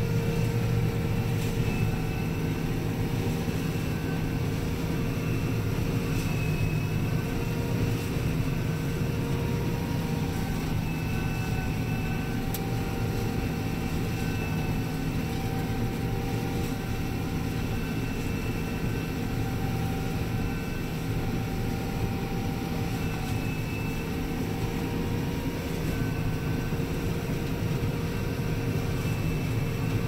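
Combine harvester cutting soybeans, heard from inside the cab: a steady engine and machinery drone with a faint high whine that comes and goes.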